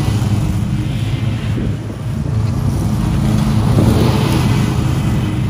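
Zero-turn riding mowers cutting tall, overgrown grass, their engines and blades running in a loud, steady drone.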